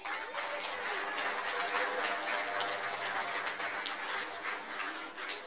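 Audience clapping: many hands applauding together, dying down near the end.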